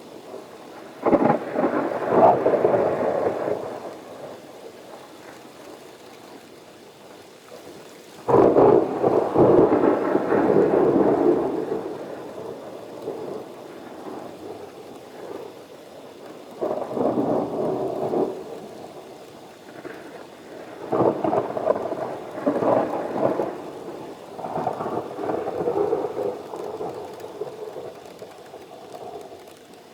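Thunder rumbling repeatedly over steady rain during a thunderstorm. Five peals come one after another; the loudest and longest comes about eight seconds in.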